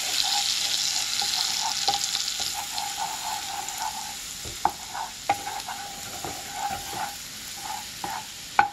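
Minced garlic sizzling in melted butter in a frying pan, stirred with a wooden spatula. The sizzle slowly fades, and the spatula knocks against the pan a few times, sharpest near the end.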